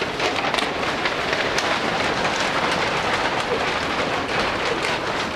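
Many brown paper bags rustling and crinkling at once as a roomful of students pull them down over their heads, a dense steady crackle that thins out near the end.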